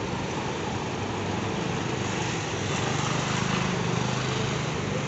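An engine running steadily under a hiss of outdoor noise, its hum getting a little stronger about two seconds in.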